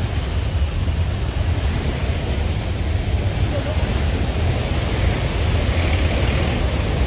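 A river in flash flood: a torrent of muddy floodwater rushing past, a steady loud rumble under a dense hiss.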